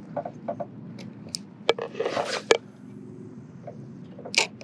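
Handling noise from a spinning rod and reel: scattered clicks and knocks, a short rushing noise about two seconds in, and a sharp click near the end.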